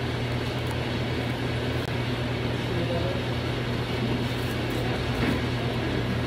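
Steady low hum with an even haze of background noise: the room tone of a restaurant dining room.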